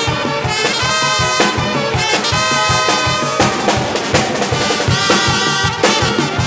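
Live band of trumpets and saxophones playing a lively tune together over a drum kit that keeps a fast, steady beat.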